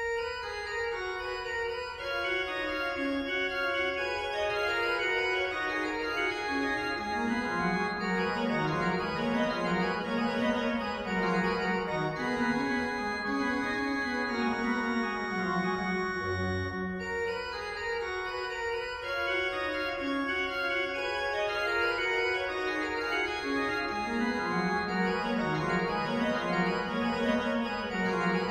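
Pipe organ playing the fourth variation of a set, a steady flow of sustained notes over a moving bass line, beginning right at the start.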